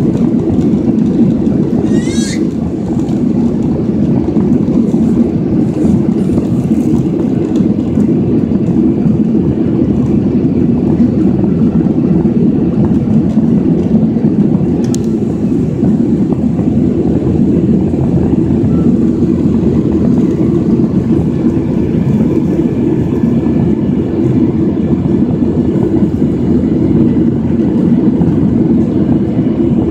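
Steady noise of a jet airliner's cabin in the climb after takeoff: engines and rushing air, loud and even throughout. A brief high chirp comes about two seconds in, and a single click near the middle.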